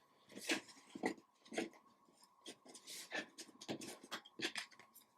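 Trading cards being handled and slid off a stack one at a time: a quick papery swipe or flick with each card, roughly two a second, unevenly spaced.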